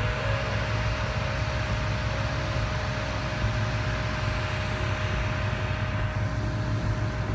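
Steady outdoor background rumble with a faint steady hum, the kind of noise that wind on the phone's microphone and distant traffic or machinery make.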